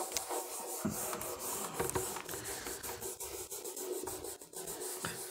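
A handheld whiteboard eraser rubbing across a whiteboard in repeated quick strokes, wiping marker writing off the board.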